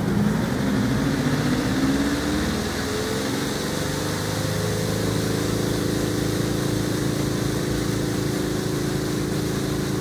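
Spin-dryer motor of a Costway twin-tub mini washer spinning up a wet load of laundry, its whine rising in pitch over the first few seconds, then running at a steady hum at full speed.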